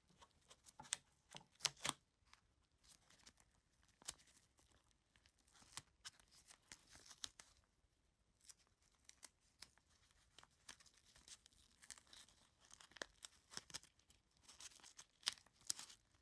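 Blue painter's tape being handled on a guitar pickup: faint, scattered crackles and tearing rustles as the sticky tape is pressed on, peeled off and crinkled, coming in several clusters.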